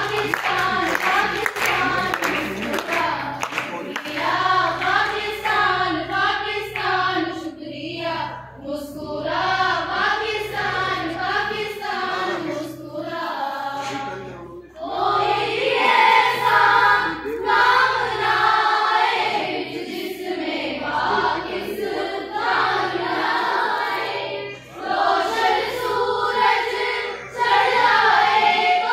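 A group of schoolgirls singing an Urdu milli naghma (Pakistani national song) together, with held, wavering notes and short breaks between lines.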